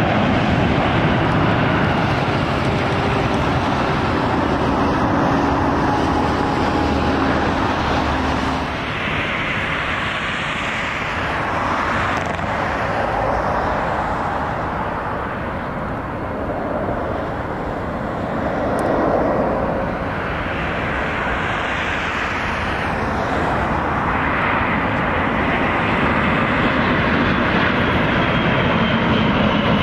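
Jet airliner engines at high power on takeoff roll and approach: a loud, continuous rushing noise that eases and swells a few times as the aircraft pass.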